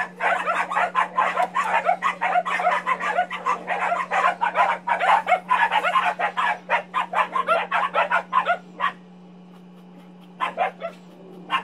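Dogs barking rapidly and continuously at each other, many barks a second, until about nine seconds in; then a few single barks near the end. A steady low hum runs underneath.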